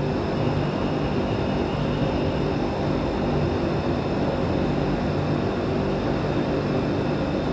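Steady hum and rumble of a BTS Skytrain electric train standing at an elevated station platform.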